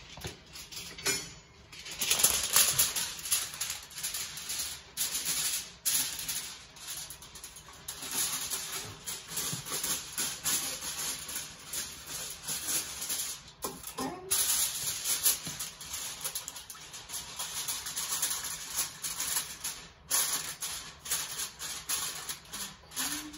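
Sheet of aluminium foil being crinkled and folded by hand, a crackling rustle that goes on with short pauses, as the foil is worked down to size.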